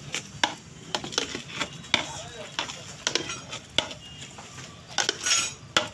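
A long metal spatula stirring and tossing shredded parotta in a large aluminium pot. Sharp knocks and scrapes come about every half second as the metal strikes the pot, with a longer scrape near the end.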